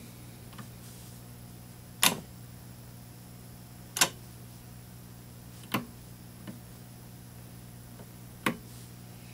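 Sharp clicks of the lever switches and buttons on a Precision Series 612 vacuum-tube tester being worked during a tube test, about five clicks one to two seconds apart, over a steady low electrical hum.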